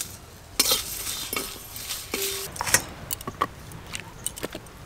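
Whole spices (coriander, fennel and cumin seeds with dried red chillies) being dry-roasted in an aluminium kadai: irregular sharp clicks and clinks of seeds and a spatula against the dry metal pan.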